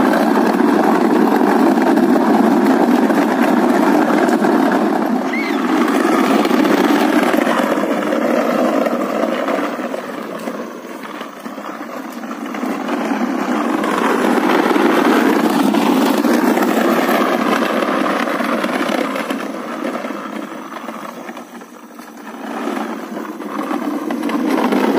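Hard plastic wheels of a toddler's ride-on push car rumbling over rough concrete, with the loudness dipping twice and coming back.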